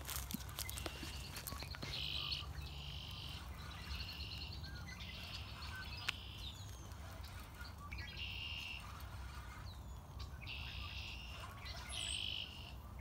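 A chorus of short, high, pulsing trills, each under a second long, repeating every second or two with some overlapping, from small animals calling.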